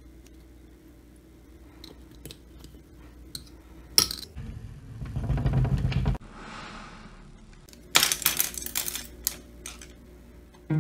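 Handling noises of oil-painting supplies: faint ticks and a sharp click around the metal oil cup, a stretch of rustling handling noise that cuts off suddenly, then a run of clattering clicks as paintbrushes are set down on a wooden palette.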